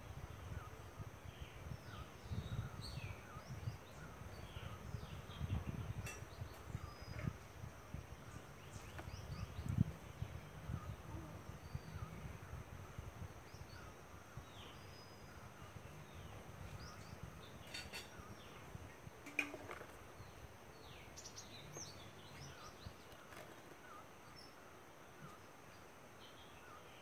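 Garden ambience of many short bird chirps and whistles scattered throughout, over a low rumble that fades out about halfway through.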